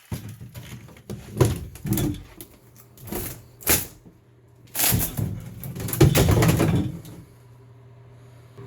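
Fiberglass bathtub surround being broken and pried out by hand: an irregular string of cracks, knocks and scrapes, with a longer, louder stretch of cracking about five to seven seconds in.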